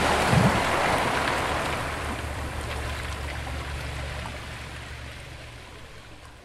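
Sea water washing against rocks in a narrow inlet, with a low steady hum underneath. It all fades out gradually.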